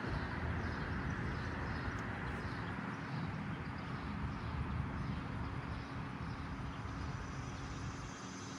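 Steady outdoor background noise: a low rumble with a faint steady hum underneath, easing off slightly near the end.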